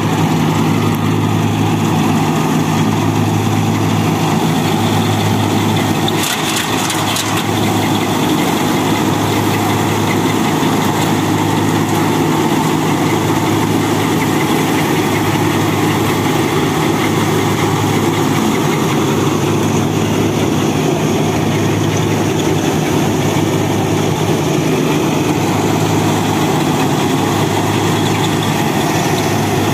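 Turbocharged Mahindra Arjun Novo 605 tractor's diesel engine running steadily under load, driving a Vishavkarma-744 straw reaper whose rotor and blower churn along with it. There is a short rattle about six seconds in.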